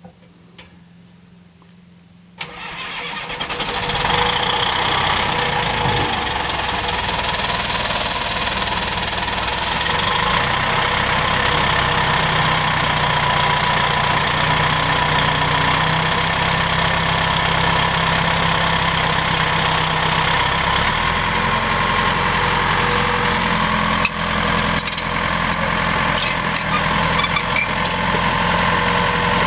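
Caterpillar D5H crawler dozer's diesel engine starting about two seconds in, catching and settling into a steady run. Its engine note shifts around twenty seconds in, and a single sharp clank sounds a few seconds later.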